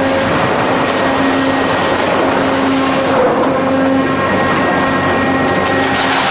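Heavy industrial machinery running: a loud, steady mechanical din with a low hum that swells and fades over and over.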